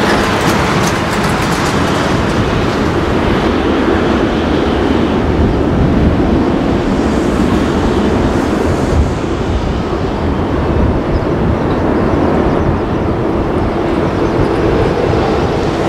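Boeing 747-400's four jet engines in reverse thrust on the landing rollout: a loud, steady roar, with a crackling hiss in the first couple of seconds.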